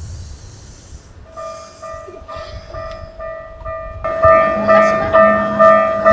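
Japanese level crossing warning bell starting about a second in, ringing a fast, even ding-ding a little over twice a second. It gets much louder about four seconds in, when a steady low hum and rumble join it.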